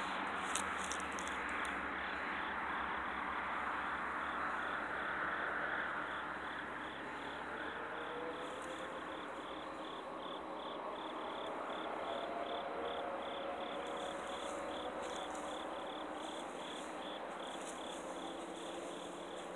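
Crickets chirping in a steady, even rhythm of about two chirps a second. A broad rushing noise, loudest in the first few seconds, fades away about six seconds in.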